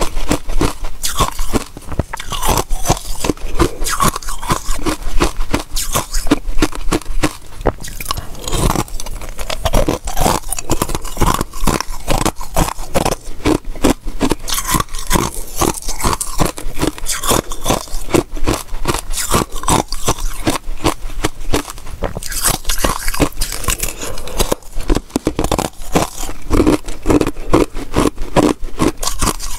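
Ice cubes frozen with basil seeds being bitten and chewed close to a clip-on microphone: a dense, unbroken run of sharp, crackling crunches.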